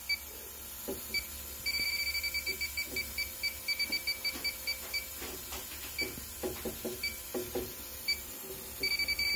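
Electronic refrigerant leak detector beeping as its probe is swept over an evaporator. The beeps are slow and irregular, with a quick run about two seconds in, then turn into fast, steady beeping near the end as it picks up a refrigerant leak. A few soft handling knocks sound along the way.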